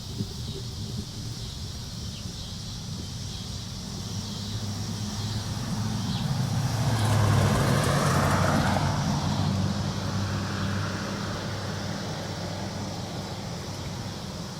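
A road vehicle passing by, growing louder to a peak about seven seconds in and then fading away, over a steady low hum and a steady high hiss.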